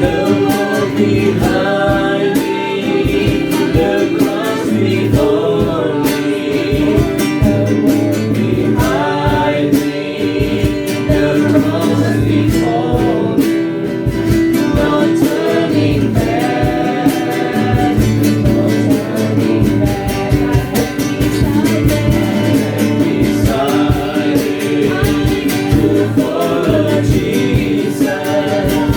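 Worship song: voices singing over guitar accompaniment.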